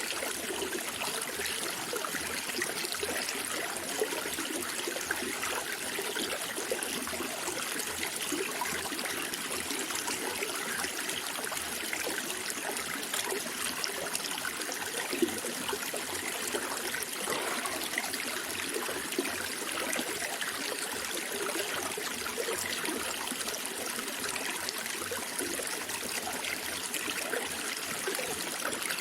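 Small stream of water trickling and babbling over stones, a steady flow with small splashes.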